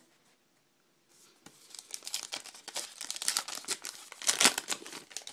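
A foil wrapper of a baseball card pack being torn open and crinkled, starting about a second and a half in, with the loudest crinkling near the end.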